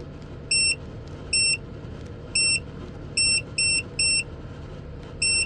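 Seven short high beeps, each about a fifth of a second long and irregularly spaced, from a 12 V under-bunk air conditioner answering button presses as its fan setting is stepped down. Under the beeps the unit runs with a steady hum.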